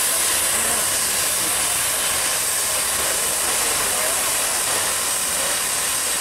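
Steady hiss of steam escaping from the idling DM&IR 332 steam locomotive.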